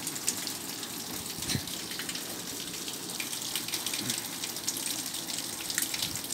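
Steady rushing background noise with a few light clicks and a soft knock about one and a half seconds in, as a metal pump mechanical seal cartridge is handled on a steel grating.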